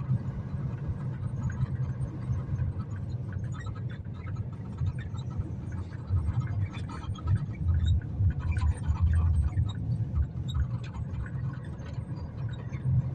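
Strong storm wind buffeting the microphone as a low gusting rumble, hardest about six to ten seconds in, with scattered small rattles and clatter.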